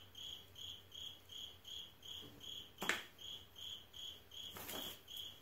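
A cricket chirping steadily, about two and a half short high chirps a second, with a single sharp click about three seconds in.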